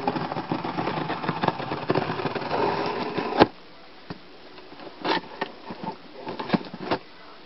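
Mail package being cut open: a dense, rapid rasping of cutting through the packaging for about three and a half seconds, ending in a sharp snap, then a few scattered clicks and crinkles as the wrapping is handled.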